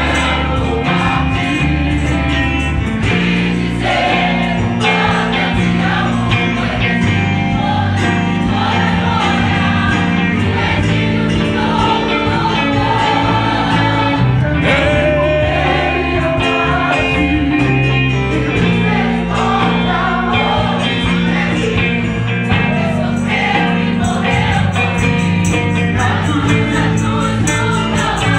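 Mixed gospel choir singing together, led by a man singing into a microphone, over live instrumental accompaniment with a steady bass line.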